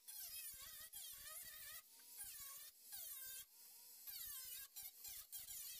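Faint whine of a cordless angle grinder with a cut-off wheel cutting through the sheet-steel fender seam. The pitch dips and recovers again and again as the motor bogs under load and frees up, in short bursts with brief breaks.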